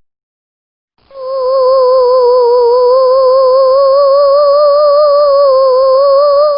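A sound effect of one long held musical note with a steady wavering vibrato, starting about a second in after silence, loud and even, and cutting off abruptly near the end.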